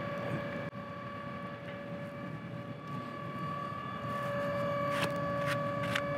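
Torchmate 4000 series CNC plasma table's gantry drive motors whining steadily as the machine homes to its zero position. It carries two steady tones, with a short dip about a second in and a few light clicks in the last two seconds.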